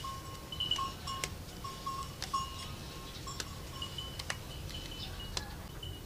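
Scattered light clicks and ticks of a wooden slingshot handle and its band being handled and tied, about a dozen over the stretch. Under them runs a thin, steady piping at two pitches, broken into short held notes.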